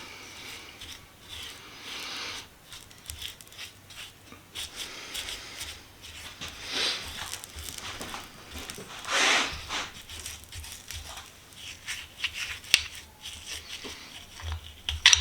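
Oil crackling on heated steel vise parts during hot-oil bluing. It is a light, irregular crackle that marks the steel at the right heat and not overheated, with two louder sizzling swells about seven and nine and a half seconds in.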